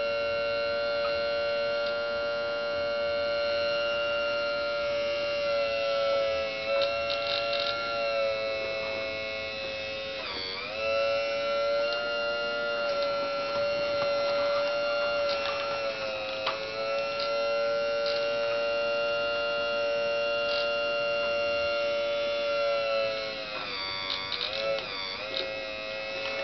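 Radio-controlled model excavator's hydraulic pump whining steadily. The pitch dips briefly about ten seconds in and again around sixteen seconds, and wobbles near the end.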